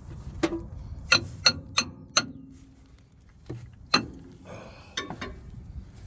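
Sharp metallic clinks and knocks, about nine in all, each ringing briefly: tools striking metal parts. They come as a quick run of five in the first couple of seconds, then a pause, then a few more.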